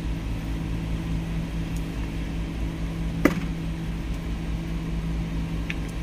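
Steady low machine hum with a low rumble underneath, and a single sharp tap a little over three seconds in.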